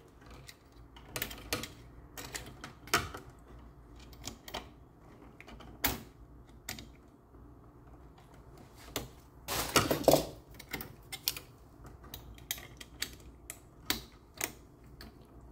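Irregular small clicks, taps and scrapes of stiff bare copper ground wire being bent by hand and worked onto the green ground screw of a light switch, with a louder, longer scrape about ten seconds in.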